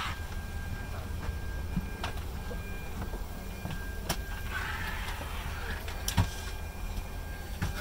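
Airliner cabin at the gate: a steady low hum of the ventilation with a faint steady whine, broken by scattered clicks and knocks, a brief rustle about five seconds in, and a sharper knock about six seconds in.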